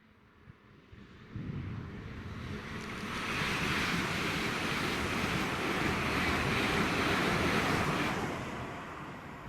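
Train passing at speed: a rushing roar with no horn that builds over a couple of seconds, holds, then fades away near the end.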